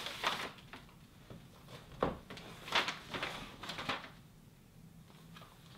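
A brown paper mailing bag rustling as a box is slid out of it and handled, with a few short knocks and rustles, the loudest about two and three seconds in.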